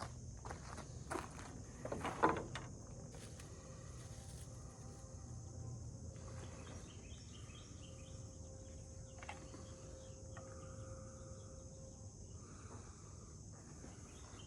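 Steady high-pitched insect drone, with a few short rustles and crunches of handling in the first two seconds or so.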